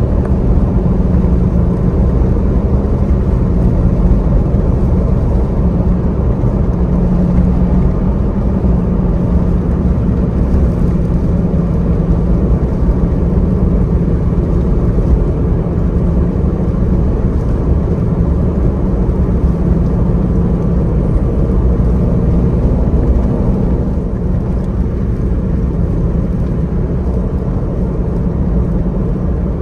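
Car driving at a steady speed on the highway: continuous low road and engine noise with a faint steady hum, easing slightly near the end.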